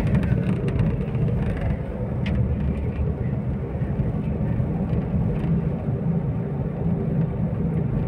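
Car engine and road noise heard from inside the cabin, steady and low, as the car climbs a steep rise.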